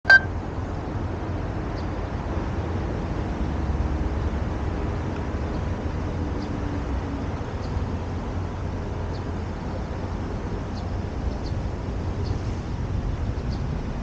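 A short electronic beep at the very start, then steady outdoor city ambience: a low, even rumble of distant traffic and wind on the microphone.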